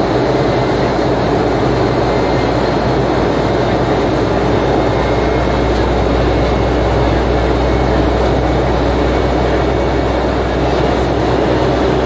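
Steady cabin noise of a Boeing 757-200 in flight: the wing-mounted turbofan engine and the airflow, heard from a window seat beside the engine as an even rush with a low hum underneath.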